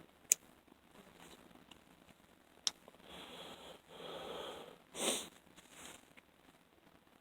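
A person breathing and sniffing close to the microphone: several short breaths in the second half, the loudest just after the five-second mark. Two sharp clicks come before them, about a third of a second in and near the three-second mark.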